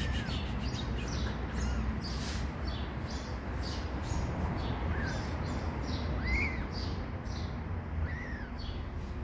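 Tiny newborn kitten mewing: about five short, thin, high mews that rise and fall in pitch, a second or two apart, over a steady low rumble.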